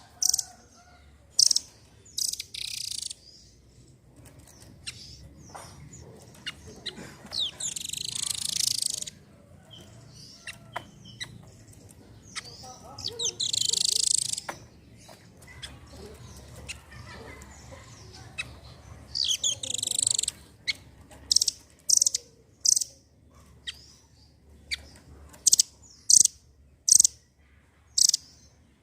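Velvet-fronted nuthatch calling: sharp, high single chips spaced about a second apart, broken four times by a dense, rapid trill lasting about two seconds.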